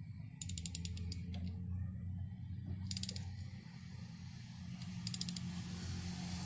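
Ratchet wrench clicking in short runs of rapid clicks, about three times, as spark plugs are turned into the engine's cylinder head, over a steady low hum.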